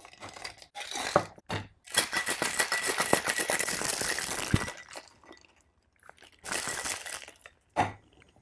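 Ice clinking into a steel shaker tin, then a Boston shaker shaken hard for about three seconds, the ice rattling fast against the metal to chill and froth a coffee-and-cream cocktail. A shorter rattle and a single knock follow as the tins are handled.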